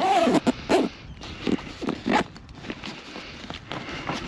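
Zipper on a fabric Husqvarna chainsaw carry bag being pulled in a few short, irregular rasps, with rustling as the bag is handled.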